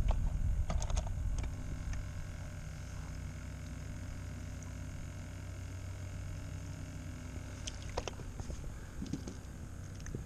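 Steady low rumble of water and air around a plastic pedal kayak, with a few faint clicks and knocks of fishing gear being handled, about a second in, around eight seconds in and near the end.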